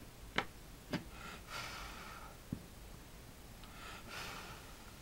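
Two sharp clicks about half a second apart near the start and a lighter knock a second and a half later, from a small lighter and a USB drive being handled on a tabletop, with soft hissing sounds of about a second each in between.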